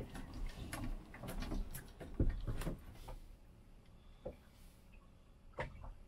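Scattered light knocks and clicks from rods, reels and catch being handled aboard a small fishing boat, the loudest about two seconds in.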